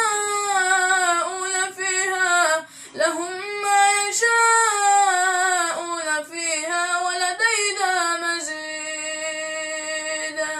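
Melodic Quran recitation (tajweed) by a single high-pitched voice, drawn out in long ornamented phrases. It ends on a long steady held note that cuts off sharply.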